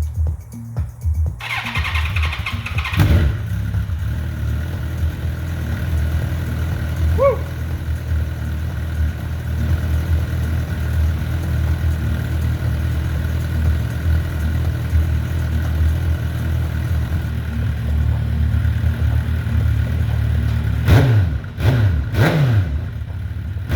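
A 2007 Suzuki GSX-R 1000's inline-four is cranked on the starter and catches. It settles into a steady idle through a stainless Akrapovic-replica slip-on muffler with its dB killer fitted. Near the end the throttle is blipped three times, each rev rising and falling quickly.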